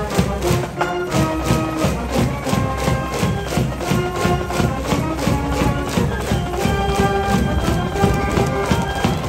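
Brass band and drums of a high-school baseball cheering section playing a fight song: brass melody over a steady drum beat.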